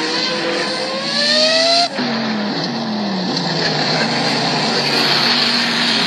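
Racing car engine revving, its pitch rising steeply before breaking off abruptly about two seconds in; the pitch then falls and the engine settles to a steadier, lower note.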